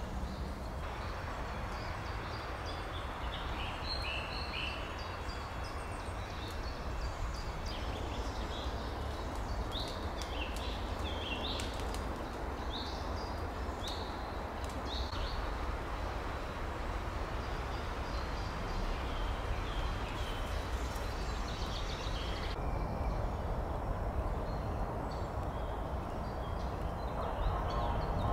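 Birds chirping and calling in short, high notes, mostly in the first half, over a steady outdoor hiss and low rumble, with scattered faint ticks through the middle.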